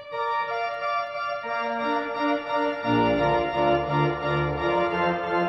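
Pipe organ playing slow, sustained chords, with deep bass notes coming in about three seconds in.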